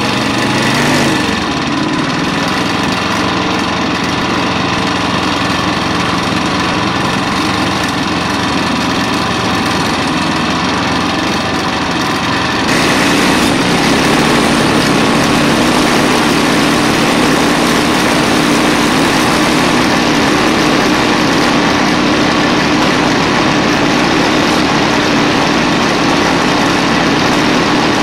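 Pasquali SB30 two-wheel walking tractor's engine running steadily as the tractor drives along. About halfway through the sound suddenly becomes louder and harsher and stays that way.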